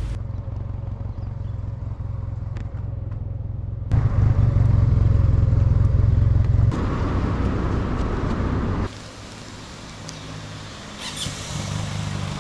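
SYM Maxsym TL500 maxi-scooter engine running as the scooter pulls away and rides, louder from about four to seven seconds in. In the last few seconds, an engine idles steadily with a low hum.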